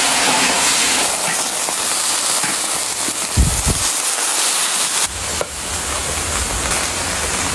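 Braised pork bones in sauce sizzling and crackling in a hot wok, with a dull thump about three and a half seconds in. The sound changes abruptly about five seconds in.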